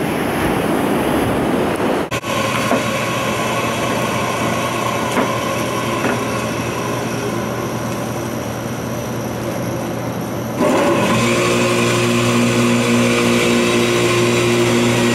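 Surf washing on a beach for the first two seconds, then the steady hum of a stainless electric juicer. The juicer jumps louder about ten seconds in as produce is pushed down its feed chute.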